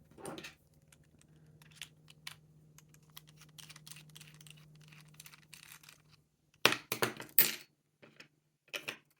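Small metallic clicks and light rustling as an opened padlock and lock-picking tools are handled. A cluster of sharp clacks comes about seven seconds in, with a few more near the end, as the pieces are set down on a hard surface.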